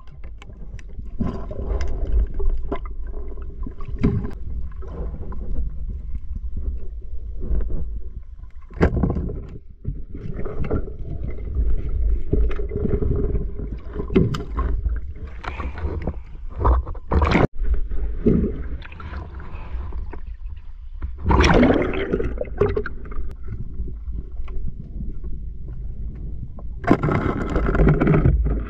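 Underwater sound through a diving camera: a steady low rumble of water, with muffled gurgling, scrapes and knocks as the speargun and fish are handled. There are louder noisy spells of churning water about three-quarters of the way in and again near the end.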